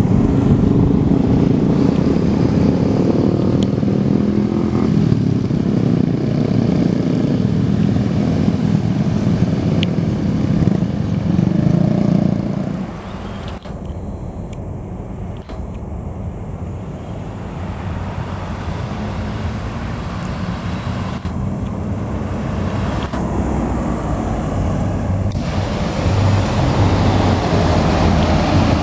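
Road vehicle engines passing close on the road. A loud, low engine sound cuts off abruptly about halfway through. After that, traffic noise slowly builds again as another vehicle approaches.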